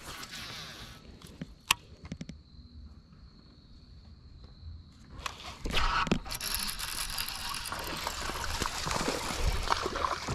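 Rod and baitcasting-reel handling with a few sharp clicks, a faint steady high whine in the middle, then from about five seconds in a sustained busy noise as a spotted bass is hooked and reeled in to the boat.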